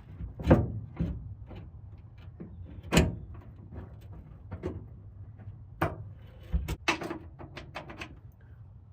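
Scattered knocks and clicks of tools and parts being handled, the loudest about half a second and three seconds in.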